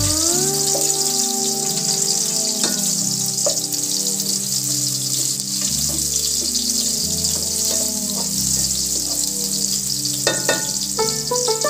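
Chopped garlic sizzling in hot oil in a steel pot, with a steady hiss and a few light clicks as a spatula stirs it. Soft background music plays under it.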